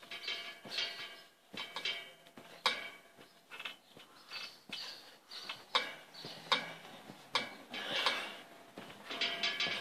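Trampoline springs squeaking and creaking under repeated bounces. Each landing gives a short thud and a metallic spring squeak, roughly a second apart.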